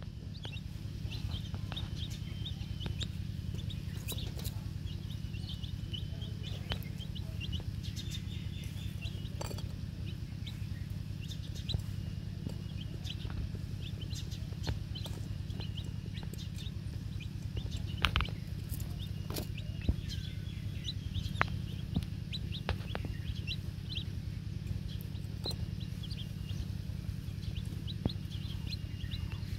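Young chicks peeping: many short, high calls in quick succession, with scattered sharp clicks and a steady low hum underneath.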